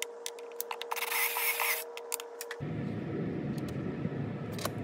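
Wooden block handled on a steel chip pan: scattered light clicks and a short scrape about a second in. Partway through the sound changes abruptly to a steady outdoor background with a few faint clicks.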